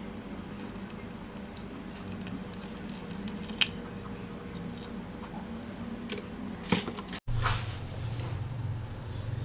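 Cold drinking water trickling in a thin pour onto washed rice in an electric rice cooker's inner pot for about the first four seconds, followed by a couple of small knocks.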